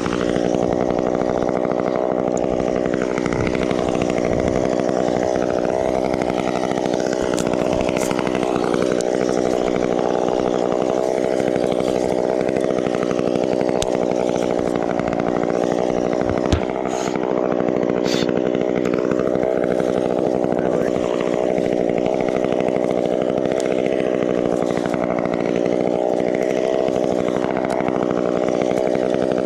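Chainsaw running at steady high revs without a break, with one short knock about 16 seconds in.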